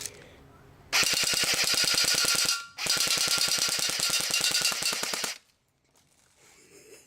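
Airsoft rifle firing full-auto in two long bursts, a rapid even stream of shots with a short break between them.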